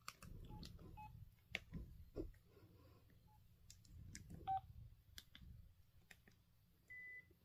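Faint keypad beeps and button clicks from old basic cell phones as their keys are pressed: several short beeps among scattered clicks, and a longer, higher beep near the end.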